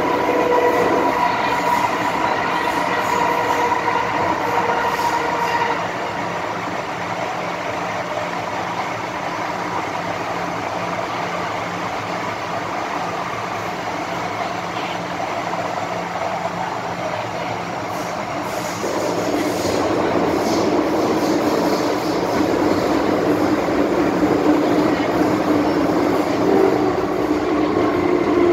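MTR M-Train electric multiple unit heard from inside the car while running, with a steady rumble of wheels and tunnel noise. Over it sits the car's traction howl (鬼叫) of steady whining tones. The howl drops away about six seconds in, leaving only the rumble, and a lower whine comes back in around nineteen seconds in as the train gets louder again.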